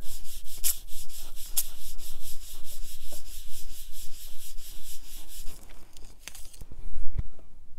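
Ranger mini ink blending foam tool scrubbed in quick short strokes, about four or five a second, across Arches hot press watercolor paper while blending ink out to an even fade. The scrubbing stops about six and a half seconds in, followed by a low thump near the end.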